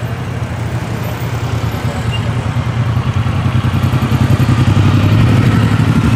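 Classic car engines idling as the cars roll past at walking pace, a steady low rumble. It grows louder over the first few seconds as a hot-rod roadster pulls up close.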